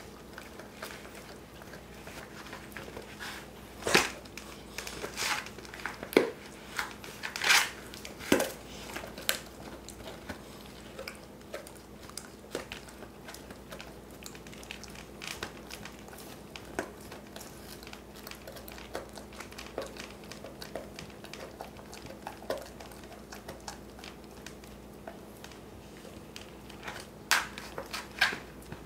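Cane Corso gnawing on a giant milk bone chew: irregular crunches and crackles as its teeth work the chew, with louder clusters about four to nine seconds in and again near the end.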